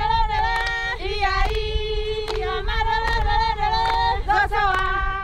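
A group of women and children singing together in held notes, with handclaps.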